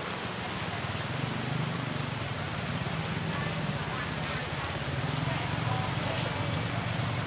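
Steady crackling hiss of beef sausages and skewers grilling over charcoal, over a low steady hum and background market voices.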